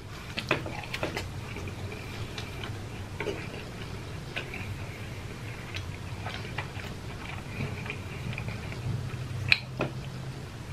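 A person chewing fried food with the mouth closed: scattered small wet clicks and crunches at irregular intervals, over a low steady hum.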